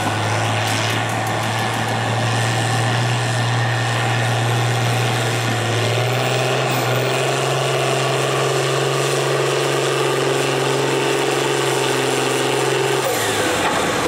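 A John Deere farm stock tractor's diesel engine runs hard under full load as it drags a weight-transfer pulling sled. Its steady pitch steps up about halfway through, then drops away near the end as the pull finishes.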